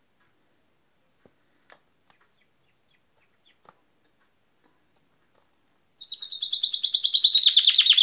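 Common chaffinch singing one song phrase near the end: a fast run of repeated notes that steps down in pitch as it goes.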